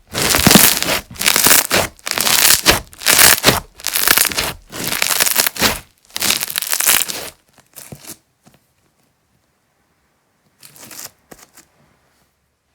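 Slime being squeezed and pressed by hand close to the microphone: a run of about seven noisy squeezes, roughly one a second, that stop about seven seconds in. A faint squeeze follows near the end.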